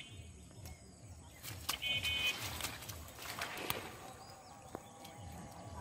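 Wet mud squelching and vegetation rustling as bare hands grab a catfish in shallow mud, with scattered clicks and scuffles. There is a brief high chirp about two seconds in.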